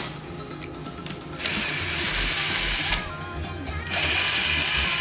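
A cordless power tool runs in two bursts of about a second and a half each, spinning out the 12 mm brake caliper bolts on a motorcycle's front fork, with background music.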